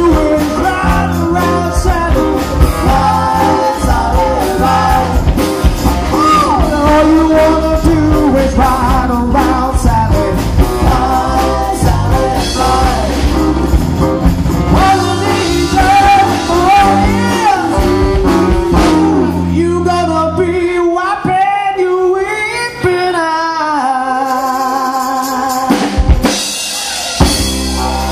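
A live band plays a soul-rock song with a lead vocal, backing singers, electric guitars, bass, drums and baritone saxophone. About twenty seconds in, the bass and drums fall away and leave the voices and higher parts. The full band comes back in with a hit near the end.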